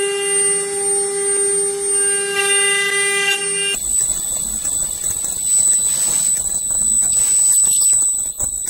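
Spindles of a multi-head rotary CNC router running and cutting, with a steady high whine. About four seconds in, the whine gives way to a noisier, jumbled machining sound with a thin high whine still on top.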